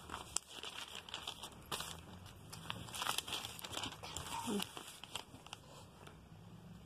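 Glossy paper catalog pages being handled and turned, giving soft, irregular paper rustles with a few light clicks.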